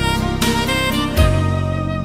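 Instrumental background music: held melodic notes over a steady low bass, with the bass shifting to a new note about a second in.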